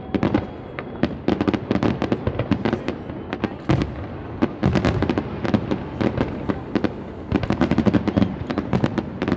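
Festive fireworks display: a rapid, irregular barrage of sharp bangs, several a second, over a continuous rumble of further bursts.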